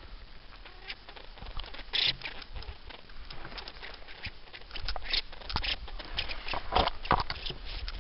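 Irregular rustling and crackling of dry twigs, leaf litter and low branches as someone moves through the undergrowth, with louder bursts about 2 seconds in and again near the end.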